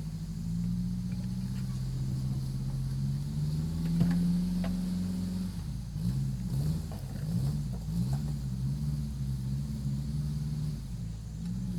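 A motor vehicle's engine running with a low note, held steady and then rising and falling with the throttle from about halfway through, with a few short knocks, the loudest about four seconds in.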